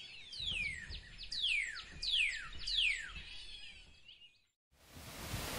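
Four descending whistles, each sliding down in pitch over about half a second, spaced a little under a second apart. After a short silence, a steady rushing noise starts near the end.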